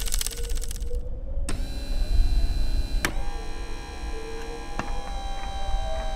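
Robot servo motors whirring as a rusty droid moves, a steady mix of tones with two sharp clicks and a slight rise in pitch near the end. Before that, a rapid mechanical clicking stops about a second in. A low rumble sits underneath throughout.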